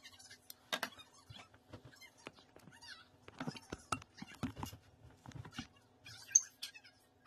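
Hands working curl gel through wet, coily hair: irregular wet squishing and crackling, with soft knocks as a hand comes close to the camera and one sharp click near the end.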